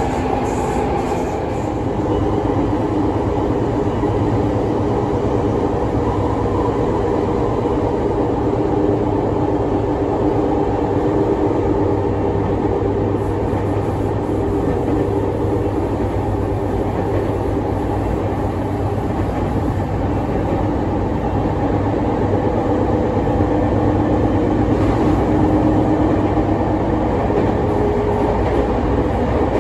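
Sotetsu 10000 series electric train heard from inside a passenger car while running at speed: a steady rumble of wheels on rail with an even hum from the traction motors.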